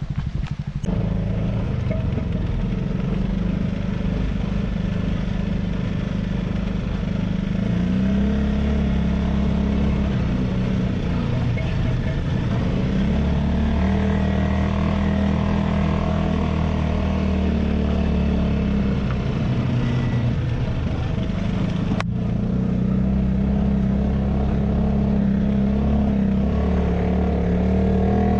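Off-road vehicle engine running under way on a dirt track, heard from inside the vehicle, its note rising and falling with the throttle. A single sharp click comes about three-quarters of the way through.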